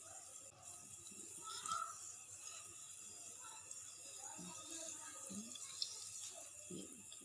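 Hot oil sizzling steadily around spinach pakoras deep-frying in a wok, with one light click about six seconds in.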